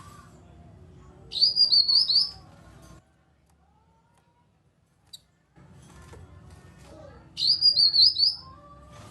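Cucak kinoi singing: two loud, fast, high warbling phrases about six seconds apart, over a faint low background hum, with a near-silent gap between them broken by a single short click.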